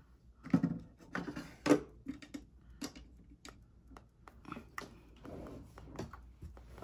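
Irregular small clicks and taps of makeup items being picked up, handled and set down, with two louder knocks in the first two seconds and softer rustling later on.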